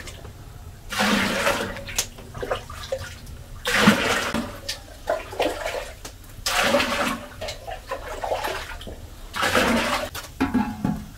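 Hot liquid scooped from a large steaming pot with a small bowl and poured out in four splashing pours, each lasting about a second.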